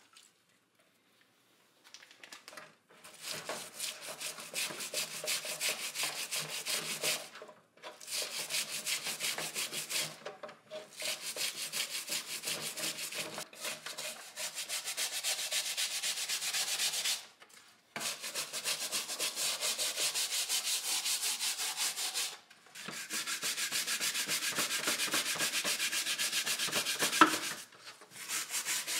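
Hand sanding or scrubbing with an abrasive on a part, quick even back-and-forth strokes. It comes in runs of a few seconds broken by short pauses, starting a couple of seconds in.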